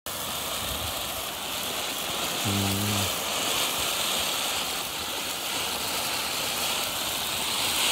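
Ground fountain firework spraying sparks with a steady hiss, and a brief low hum about two and a half seconds in.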